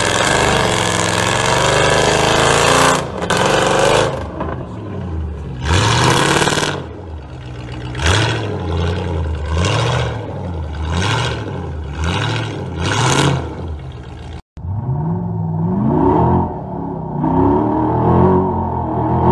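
Off-road 4x4 engine revved hard, then blipped in repeated rising surges about once a second as the vehicle claws up a steep sandy climb. After a sudden cut, a rock-crawler buggy's engine revs in short rising bursts.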